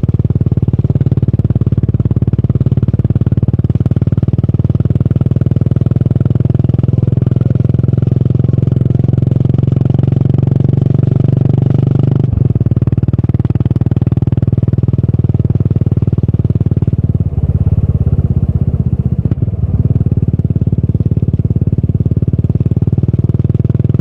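Exhaust note of a Yamaha SR400's single-cylinder four-stroke engine through a Goods tapered-cone slip-on muffler, running steadily under way. It has a brief break about halfway through and a few short dips in the note a little later.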